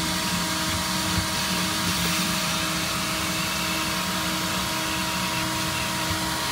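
Car wash vacuum running steadily, a constant suction hiss with a steady motor whine.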